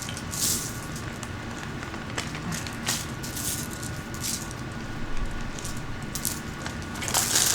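Bag crinkling and rustling in the hands, with small clicks of tumbled blue lace agate stones knocking together as they are put back into it. The crinkling comes in several short swishes, the loudest near the end.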